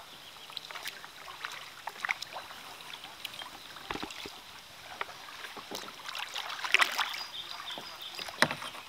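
Kayak paddling: paddle blades dipping and water splashing and dripping around the boat in an irregular patter, with a few louder splashes toward the end.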